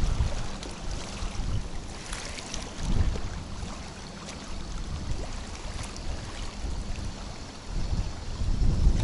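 Strong wind buffeting the microphone in gusts, a low rumbling noise that swells and eases, louder about three seconds in and again near the end, with a few faint light ticks.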